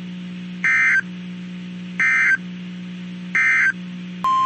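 Three short bursts of EAS SAME digital data, the end-of-message code that closes a weather alert, each a harsh warbling screech about a third of a second long, spaced about 1.4 s apart over a low steady hum. Near the end, the steady single-pitch NOAA Weather Radio 1050 Hz warning alarm tone comes on.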